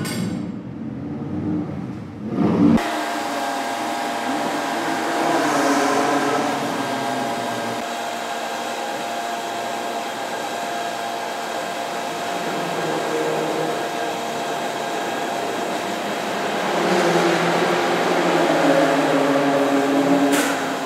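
A motor-driven fan running with a steady whir: a few steady whining tones over a rushing hiss. A different, lower sound cuts off abruptly about three seconds in.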